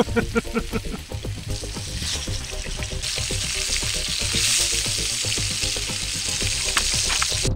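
Fish pieces sizzling in hot fat in a shallow metal pan over a campfire, the hiss building from about two seconds in and holding steady.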